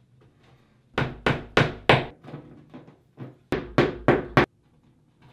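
Toggler Alligator A5 plastic anchors being tapped into drywall holes without a hammer: a run of four sharp knocks about a second in, then, after a pause, a run of five quicker knocks.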